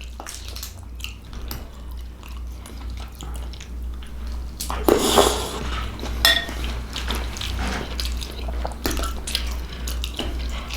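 A fork clinking and scraping against a dish while someone eats, in short scattered clicks, the loudest about five seconds in and again just after six.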